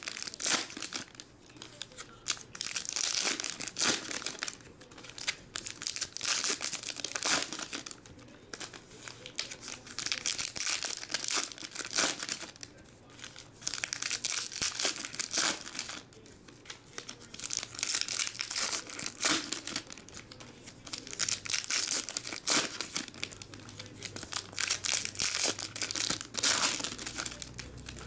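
Foil wrappers of trading-card packs being torn open and crinkled, one pack after another. The crackling comes in bursts every couple of seconds with short quieter gaps between.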